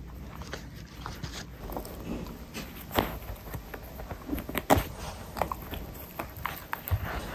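A small dog gnawing on a worn leather baseball: irregular clicks and scrapes of teeth on the ball's cover.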